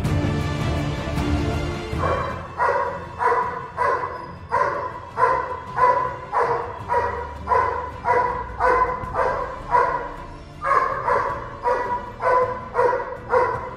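Doberman barking steadily and repeatedly, about two barks a second with a brief pause near the middle: protection-dog guard barking at a man walking toward it. Background music plays for the first two seconds.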